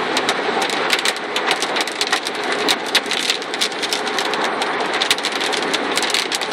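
Heavy rain pelting a moving car's roof and windshield, a dense, continuous patter of sharp hits heard from inside the cabin.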